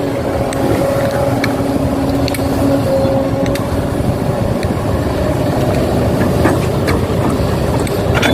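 Machinery running steadily: a dense low rumble with a faint held tone above it and a few light clicks.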